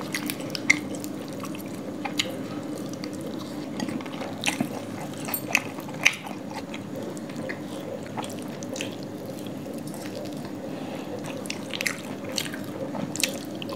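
Two people eating chicken curry and laccha paratha with their hands: scattered wet mouth clicks and smacks of chewing, over a steady low hum.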